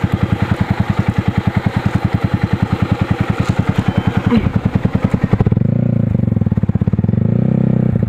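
Yamaha sport motorcycle's engine idling with a steady, even pulse. About five and a half seconds in the running turns heavier and duller.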